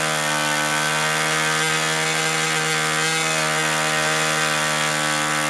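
An HP 61 two-stroke nitro glow model airplane engine running steadily at an even pitch while its high-speed needle is turned in. It is still running rich and four-stroking, not yet leaned out to a clean two-stroke note.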